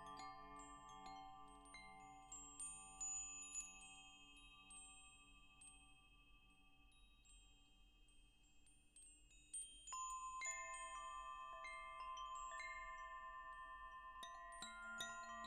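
Wind chimes struck now and then by the breeze, several notes of different pitch ringing on for seconds and overlapping. The ringing dies down to a lull midway, then a fresh cluster of strikes comes about ten seconds in, with more near the end.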